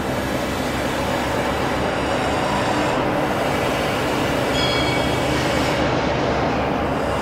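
Steady running noise of a rail move as the partly dismantled BR Standard 4MT tank locomotive 80105 is hauled along the shed track, with a brief faint high wheel squeal about four and a half seconds in.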